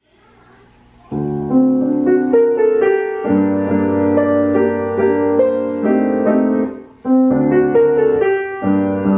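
Solo piano background music, starting about a second in, with a brief break near the end before the playing picks up again.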